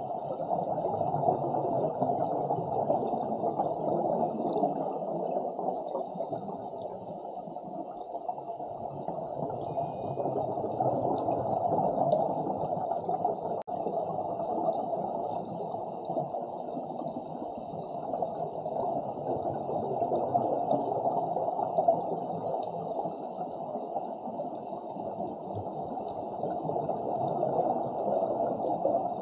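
Steady, muffled underwater rushing picked up by an action camera in the water, with faint crackle higher up.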